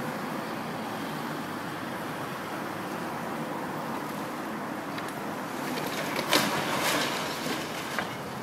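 Demolition by an excavator tearing down a brick building: a steady rumble of machinery and street traffic, broken about six seconds in by a short burst of crashing and clattering as masonry comes down, with one more knock near the end.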